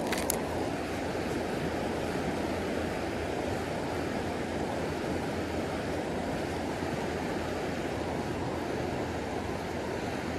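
Steady rushing of a fast creek flowing over rocks, a constant even noise with no change. Two short sharp clicks come right at the start.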